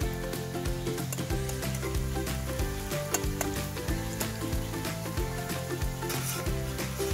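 Eggplant slices and onions sizzling as they deep-fry in hot oil in a pan, stirred with a slotted metal spoon, under background music with sustained notes.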